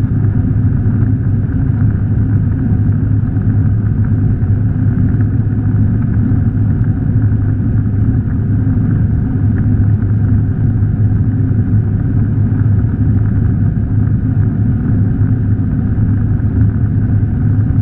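Steady cabin noise of an Airbus A319 in flight: the drone of the jet engines and the rush of air over the fuselage, heard inside the cabin at a window seat, deep and even with no change in pitch.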